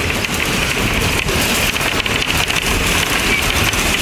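Steady rushing noise of a moving vehicle heard from inside through an open window, with a dense scatter of faint crackles and clicks.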